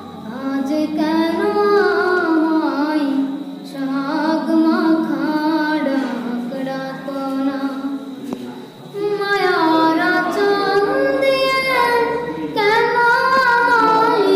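A boy singing a Bengali song about mother unaccompanied, in long held phrases broken by short breaths.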